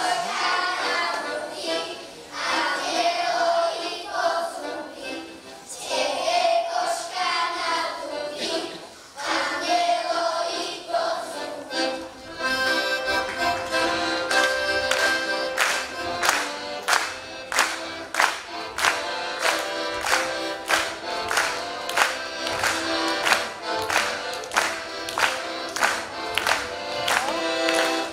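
Children's choir singing a folk song with instrumental accompaniment. About twelve seconds in, the singing gives way to a lively instrumental dance tune with sharp beats about twice a second.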